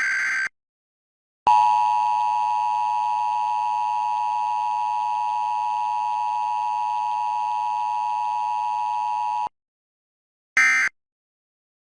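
Emergency Alert System tones. A harsh digital data burst ends just after the start, and about a second and a half in the steady two-tone EAS attention signal starts. It holds for about eight seconds and cuts off suddenly, and a short data burst near the end begins the end-of-message code.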